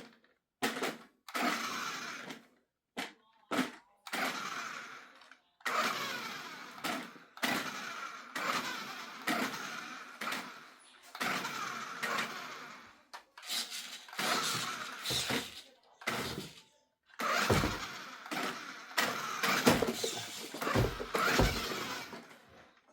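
Toy remote-control car's small electric motor whirring in repeated short bursts of one to three seconds, stopping and starting, with a few low thumps near the end.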